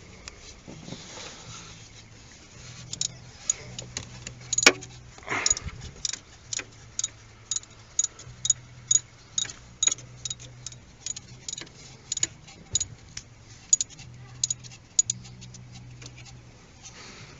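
A 3.3 V6 engine in a 2005 Dodge Caravan running with a sharp, uneven knocking, a few knocks a second over a low hum. This is the knock the owner traced to a failing crankshaft position sensor, along with misfires and rough running.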